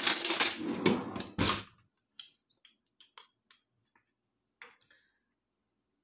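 Kitchen things handled close to the microphone: a loud clatter and rustle for about the first two seconds, then scattered light clicks and clinks from a glass bottle and a metal spoon.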